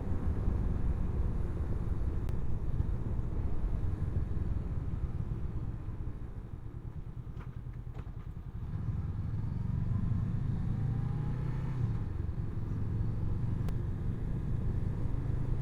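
Honda CB500X's parallel-twin engine running under way with road and wind rumble, easing off a little in the middle and picking up again about nine seconds in.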